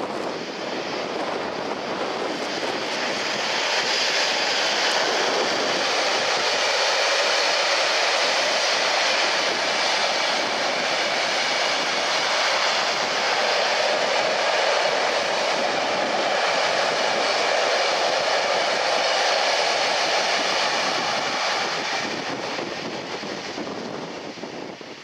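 Freight train of open box wagons behind a Class 66 diesel locomotive passing close by: steady wheel-on-rail rolling noise that builds over the first few seconds, holds, and fades near the end as the last wagons go by.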